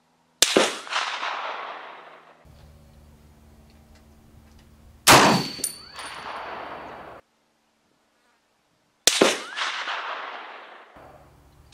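Three shots from a scoped M1A National Match semi-automatic rifle in .308, about four seconds apart, each followed by a long echo that fades away. A brief ringing tone follows right after the second shot.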